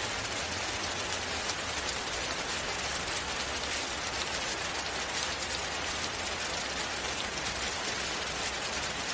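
Steady rain: an even, unbroken patter of drops.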